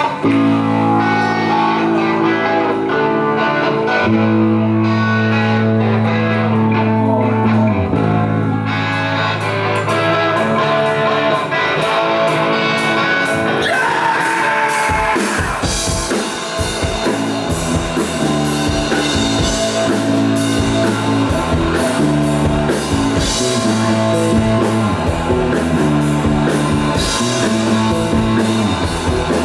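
Live rock band playing: guitar chords ring out on their own, then the drum kit comes in about halfway through and the full band plays on with a steady beat.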